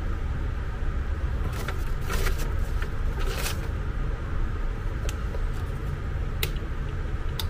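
A steady low rumble with scattered short clicks and rustles from handling a plastic handheld remote and its cable.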